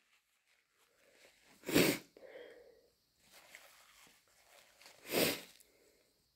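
Two short, sharp sniffs through a runny, congested nose, about three and a half seconds apart, with a faint breathy sound just after the first; the nose is streaming from irritation that the sneezer puts down to hay fever.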